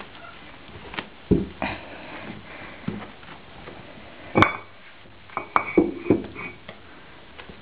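Young puppies squeaking briefly in a cluster of short calls past the middle, among scattered sharp knocks and rustles from the litter being handled in its box.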